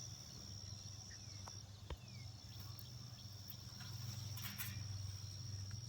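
Quiet outdoor garden ambience: a steady high-pitched insect trill, briefly breaking off a little after one second in, over a low steady hum, with a few faint clicks.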